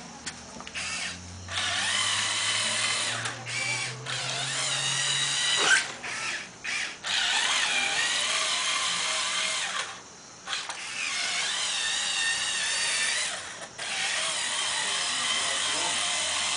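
Small electric motors and plastic gears of a LEGO remote-control truck whirring in about four runs of a few seconds each, starting and stopping with short pauses between.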